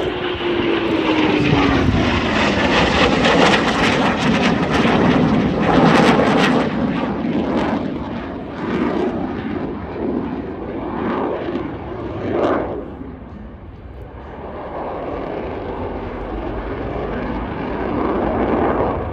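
Eurofighter Typhoon fighter jet passing in afterburner. Its whine drops in pitch over the first few seconds as it goes by, with loud crackling jet noise for several seconds. The noise then eases about two-thirds of the way through and builds again near the end.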